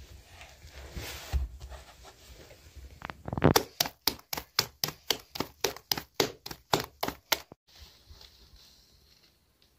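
Naan dough being slapped rapidly between the palms to stretch it for the tandoor: a quick, even run of about twenty slaps, some five a second, that stops suddenly. Softer rustling handling comes before it.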